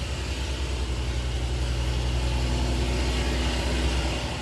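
Supercharged Dodge Charger SRT's V8 running at low revs as the car creeps along, heard from inside the cabin. The engine note strengthens a little after about a second and eases off near the end.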